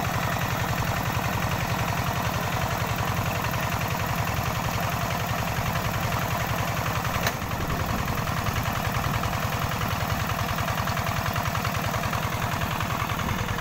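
Single-cylinder diesel engine of a homemade rice harvester built on a Quick G2000 hand tractor, idling steadily with an even chugging firing rhythm just after starting. A single sharp click sounds about seven seconds in.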